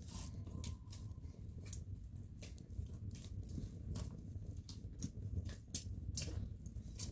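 Small open wood fire of dry sticks crackling, with sharp irregular pops several times a second over a steady low rumble.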